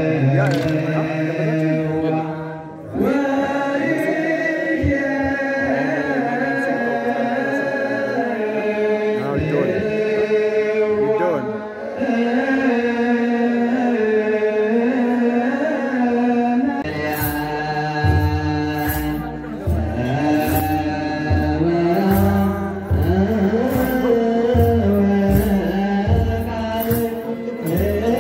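A group of voices chanting a slow Ethiopian Orthodox hymn in unison. About seventeen seconds in, a drum starts beating a steady rhythm under the singing, with sharp clicks over it.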